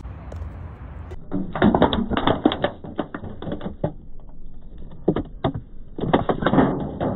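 Aluminium drink can being crushed under a high heel: a dense run of crackling, crinkling crunches as the thin metal crumples. A couple of single cracks follow, then a second run of crackling near the end.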